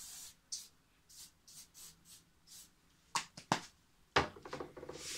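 Aerosol oil sheen hairspray sprayed onto hair in a string of short hissing puffs, about eight in the first three seconds and one more near the end. Between them come a few sharp knocks, the loudest just past four seconds in.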